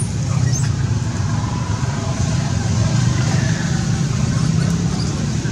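Steady low motor rumble, like an engine idling, with faint voices in the background.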